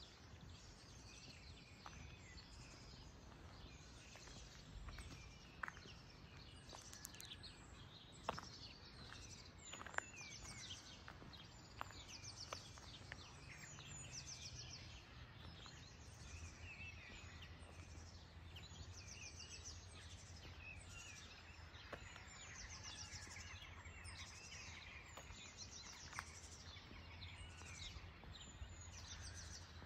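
Several songbirds singing at once, faint, with overlapping chirps and quick trilled phrases repeating throughout, over a low steady background hum. A few soft clicks stand out here and there.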